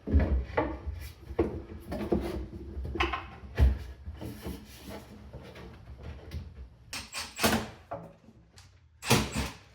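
Hands working wooden cabinet parts into place: irregular knocks, taps and scrapes of wood on wood, with a heavier thump about three and a half seconds in and two short hissing scrapes near the end.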